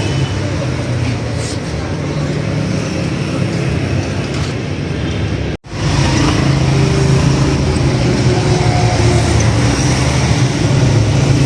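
Steady vehicle and road-traffic noise with engines running, cut off for an instant about halfway through.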